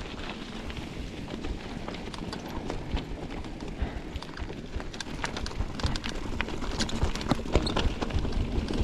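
Full-suspension mountain bike rolling down a dirt flow trail: tyre noise with many small clicks and knocks as the bike rattles over bumps.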